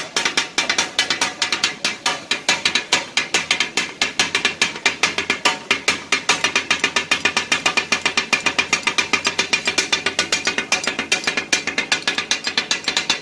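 Two flat steel blades chopping offal against a large steel griddle, a fast steady metallic clatter of several strikes a second. This is the 'kata-kat' (tak-a-tak) sound that gives the dish its name.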